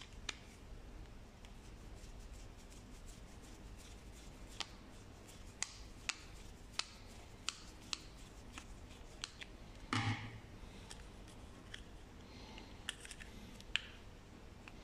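Small screwdriver prying at the seam of a Toyota key's plastic remote shell: a scattered series of sharp plastic clicks and ticks, with a louder crackle about ten seconds in and a few more clicks near the end as the shell clips are worked loose.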